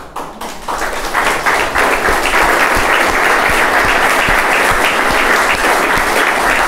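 Audience applauding, a dense clapping that builds up in the first second and then holds steady.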